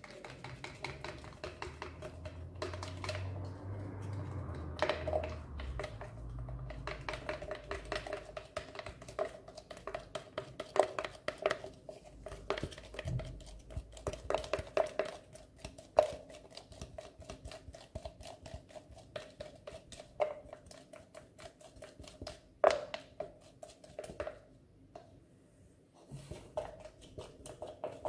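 A stirring stick mixing slime glue with baking soda in a plastic jar, clicking and scraping against the sides in quick irregular strokes, with a few louder knocks.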